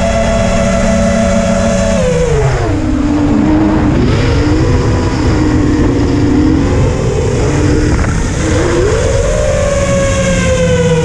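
FPV quadcopter's brushless motors whining, their pitch dropping about two seconds in as the throttle eases, wavering low, then climbing again near the end.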